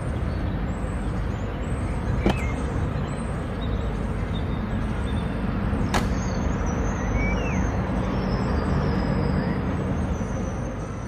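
Steady rumbling ambient noise inside a show cave, picked up by a phone's microphone, with two sharp clicks about two and six seconds in.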